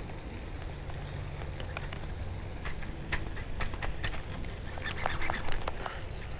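Scattered sharp clicks and knocks from hands working a baitcasting rod and reel right at the microphone, over a steady low wind rumble. A few short calls come in about five seconds in.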